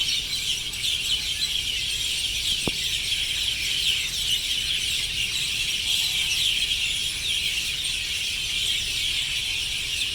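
A dense chorus of many sparrows chirping at once, a continuous overlapping twitter of short high notes, as the flock gathers at its evening roost.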